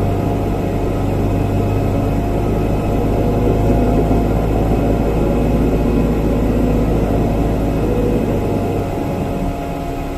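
Airbus jet airliner running on the apron during pushback: a steady low drone with several steady hums over it, easing slightly near the end.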